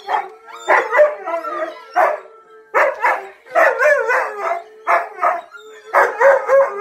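Siberian husky howling and giving short woo-woo barks, about ten quick calls in a row that waver in pitch, with a fainter steady howl held underneath.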